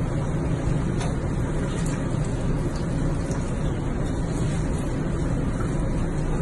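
Steady rushing and churning of bathtub water, with a low hum underneath.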